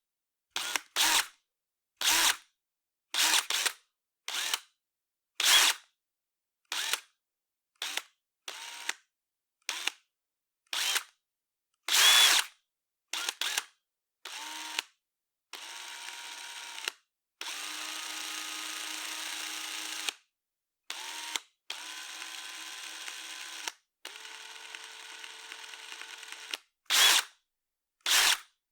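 Electric drill triggered in many short bursts, each under a second with silence between. In the middle it runs in several longer steady stretches of two to three seconds each with a steady motor whine, then returns to short bursts near the end.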